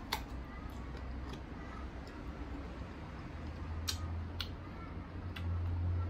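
Close-up eating of crunchy unripe green mango: a crisp bite near the start, then chewing, with a few more sharp crunches around four seconds in.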